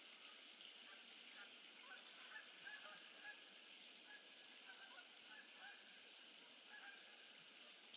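Faint honking of a flock of geese: many short, overlapping calls over a steady background hiss.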